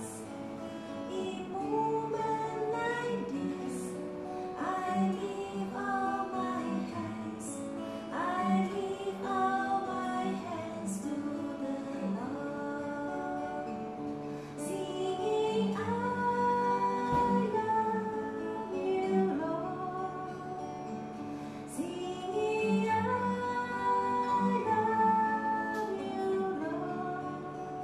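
A woman singing a slow melody while playing an acoustic guitar.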